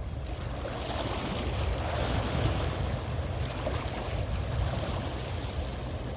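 Sea waves washing onto the shore, a hiss that swells about a second in and eases near the end, with wind rumbling on the microphone.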